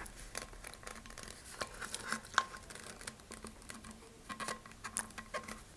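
Faint handling noises: scattered small clicks, ticks and scratches as hands work a tight metal quick link onto the shock cord and a plastic model-rocket nose cone's loop.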